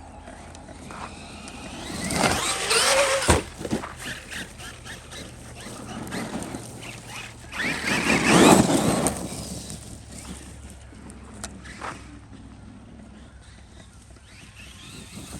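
Traxxas Maxx RC monster truck's electric motor whining as it speeds up and slows in two hard runs, about two and eight seconds in, with the rush of its tyres over the ground, and a sharp knock about three seconds in.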